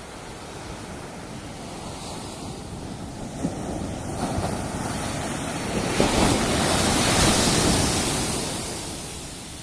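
Surf breaking on a sandy beach: a wave builds to its loudest crash about two-thirds of the way through, then washes out and fades.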